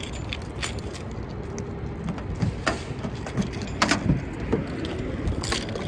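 Steady low rumble of city traffic and street noise, with several sharp clicks and jingles scattered through it.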